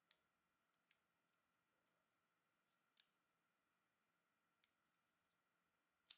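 Faint, sparse clicks of small metal knife parts and tools being handled while a Spyderco Lil Native folding knife is worked on, about five in all, the sharpest near the end.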